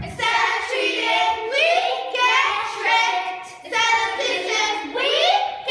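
A group of young girls singing together, with little or no instrumental backing.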